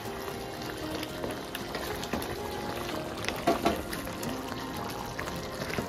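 Chicken curry bubbling in a kadhai while a wooden spatula stirs it, with a few louder knocks or scrapes against the pan about three and a half seconds in. Soft background music underneath.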